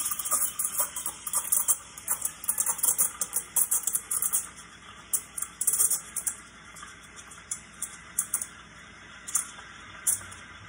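Rocket Appartamento espresso machine's steam wand hissing into a pitcher of oat milk, with a sputtering, crackling chirp as air is drawn in to froth the milk. The crackles come thick for about the first six seconds, then thin out as the hiss settles.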